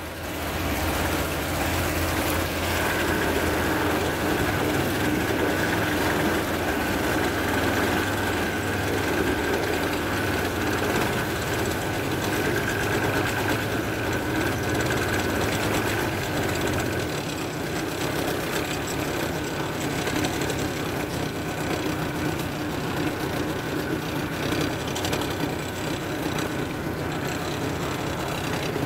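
Tugboat's diesel engine running steadily under tow load, a low drone with a thin steady whine over it for much of the first half; the drone weakens after about seventeen seconds as the boat draws away.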